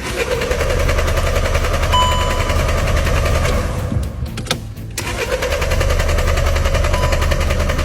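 A car's starter motor cranking the engine in two long attempts, about a second apart, with a fast even chugging, and the engine never catching. This is a no-start that the mechanic puts down to a sludge-clogged camshaft solenoid valve.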